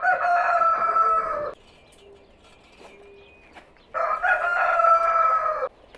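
A rooster crowing twice, each crow a drawn-out call of nearly two seconds, the second beginning about four seconds in.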